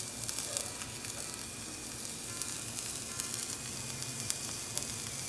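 Sopes frying in hot lard: a steady sizzle with many small pops and crackles.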